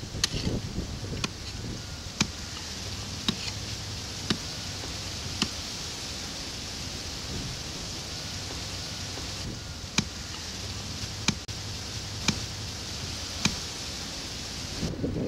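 A hand digging tool chopping into a hard red clay bank: short sharp strikes about once a second, pausing for a few seconds midway, over a steady outdoor hiss.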